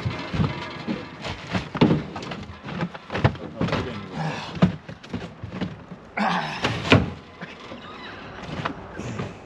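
Padded vinyl seats being shifted around and set down inside a bare metal hull: a run of irregular thunks and knocks, with a short scraping rustle about six seconds in that ends in a sharp knock.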